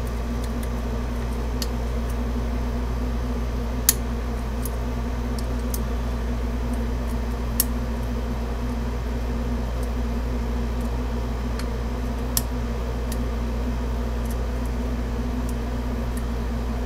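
Faint, sharp metallic clicks of a short hook pick working the pins of a 5-pin half-euro Baton pin-tumbler cylinder under tension, three of them louder than the rest, over a steady low hum.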